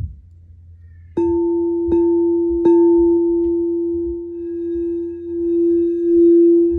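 Singing bowl struck three times in quick succession, about a second in, then ringing on in one clear tone with higher overtones, swelling and fading in slow waves. Before the first strike, soft low thuds of footsteps from kids running upstairs.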